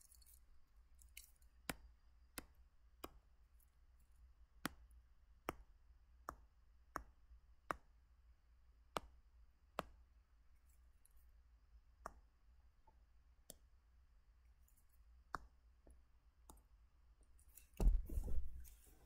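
Faint, sharp clicks, about fourteen at uneven intervals, from pen strokes being drawn on a computer. Near the end comes a louder rustle and bump lasting about a second.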